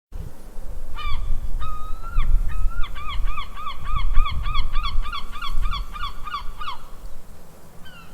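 A goose honking: a few single honks, then a fast run of about four honks a second for several seconds, over a low rumble.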